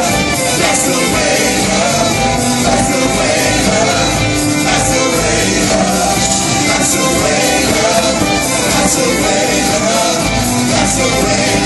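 A live band with a violin section playing a song, with voices singing over it; loud and continuous.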